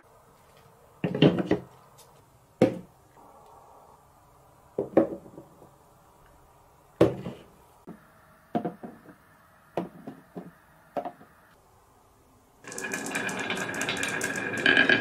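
Wooden toy blocks knocking together and on a table as they are picked up, set down and stacked: a series of separate sharp wooden clacks with quiet between them. About two seconds before the end, a continuous, louder rattling clatter sets in.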